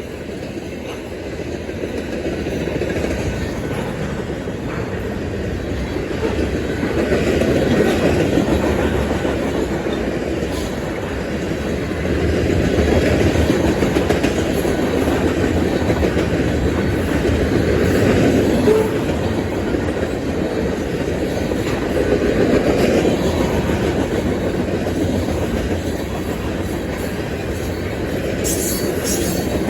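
Freight train passing at speed: a steady rumble of rolling cars with wheels clacking over rail joints, building over the first several seconds and then holding with slow swells.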